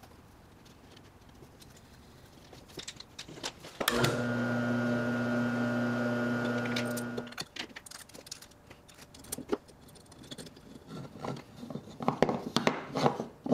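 An electric motor switched on briefly, running with a steady hum for about three seconds before winding down. Small metal parts and wood clicking and knocking as they are handled follow.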